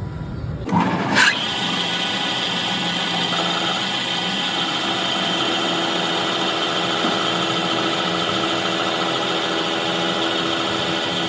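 A metalworking machine running steadily, after a brief loud rising sound about a second in.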